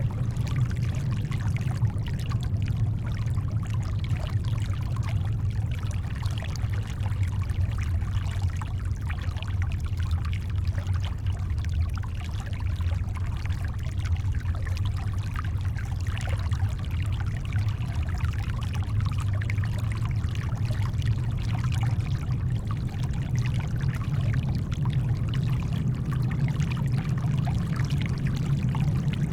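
Steady brown noise, a deep even rumble, blended with shoreline water making a soft, continuous trickling wash. There are no separate wave crashes.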